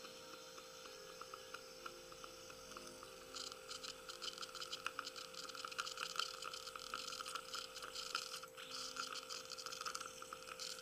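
Metal dental hand instruments tapping and scraping on a front tooth as composite is tamped and smoothed around a bonded pontic: a patter of small quick ticks that gets denser and louder about three seconds in, over a steady hum.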